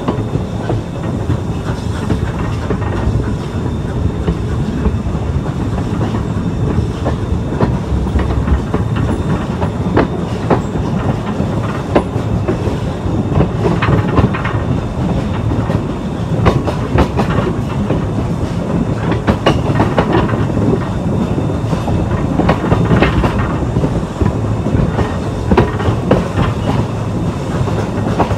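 A train rolling along the track: a steady rumble with frequent irregular clicks and knocks from the wheels and cars.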